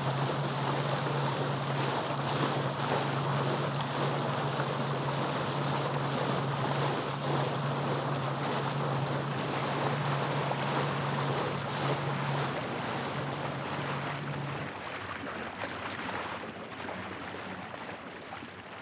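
Motorboat running at speed under outboard power: a steady low engine drone over rushing water and wind on the microphone. About fifteen seconds in the engine tone drops out, leaving the water and wind sound, a little quieter.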